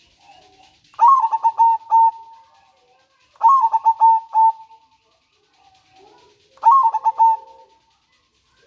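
Zebra dove (perkutut) singing its cooing song three times: each phrase a quick run of stuttering coos that ends in a longer held note. Faint high chirping runs underneath.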